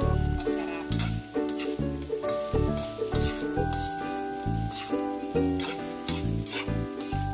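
Egg fried rice sizzling in a wok as it is stirred and tossed, over background music with a steady bass beat and melody.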